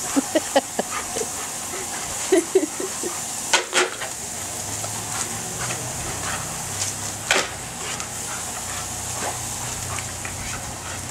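Lawn sprinkler spraying water with a steady hiss while German Shepherds play in the spray. Scattered sharp splashy hits and claw clicks are heard, the loudest a little over three and a half seconds in and about seven seconds in, with a brief dog vocalization about two and a half seconds in.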